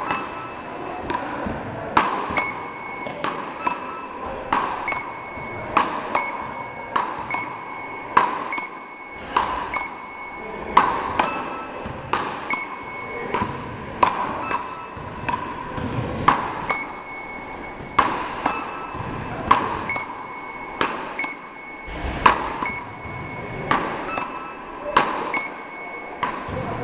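A rally of beach-paddle (raketes) shots: a rubber ball is struck back and forth with sharp knocks about once a second, the knocks echoing in a large hall. Many hits are followed by a short electronic beep from the machine that measures and counts the shots.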